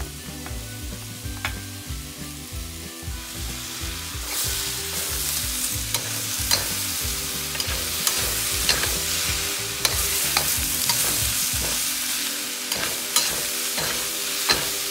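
Vegetables and sliced bratwurst sizzling in a hot steel wok, with a metal utensil clicking and scraping against the pan as they are stir-fried. The sizzle gets louder about four seconds in.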